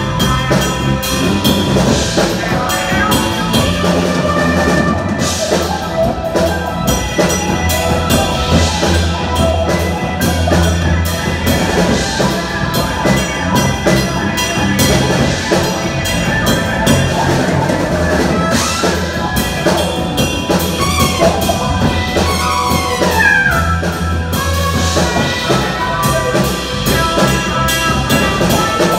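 A live jazz-fusion big band playing: a drum kit driving a steady beat under electric bass, keyboards, electric guitar and horns. A little past the two-thirds mark one part slides downward in pitch over a couple of seconds.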